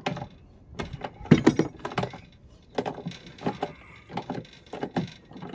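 Socket wrench with a 17mm socket being fitted and worked on a bolt: a string of irregular clicks and clinks of ratchet and tool against the bracket.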